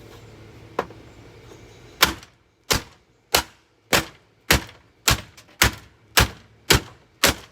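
A Hoover vacuum cleaner being struck over and over with a hammer: about ten sharp, evenly spaced blows, a little under two a second, starting about two seconds in after a single light tap.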